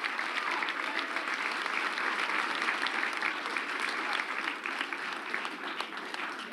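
Audience applauding, a dense patter of many hands clapping that begins to die down near the end.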